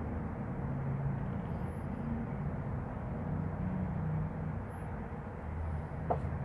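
Steady, uneven low rumble of background noise, with a few faint high chirps and a single click near the end.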